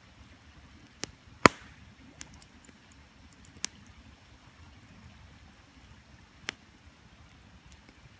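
Wood campfire crackling, with a handful of sharp pops, the loudest about a second and a half in, over the steady low rush of a creek.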